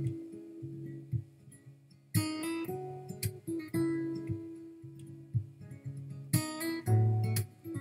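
Acoustic guitar music: picked notes, with a strummed chord about two seconds in and another near the end.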